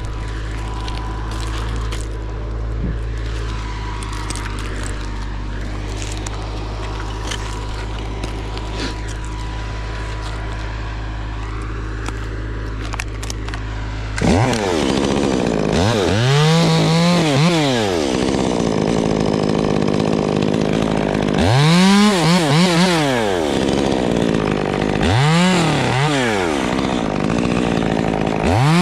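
Stihl top-handle chainsaw idling steadily, then from about halfway through revved up several times, each surge rising in pitch and falling back, as it cuts into a pine limb.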